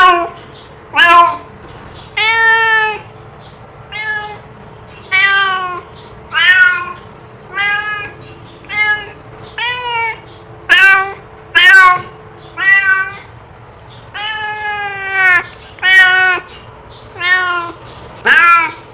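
Domestic cat meowing over and over, about one meow a second, with a few longer, drawn-out meows among them.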